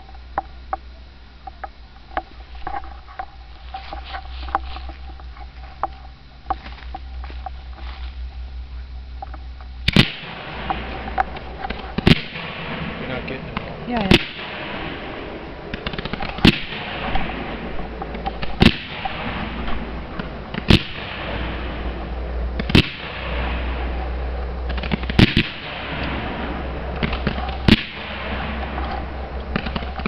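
A 100-shot gold waterfall firework cake firing. Faint pops come first. About ten seconds in it picks up, with sharp bangs roughly every two seconds as the gold shells burst over a continuous crackling hiss.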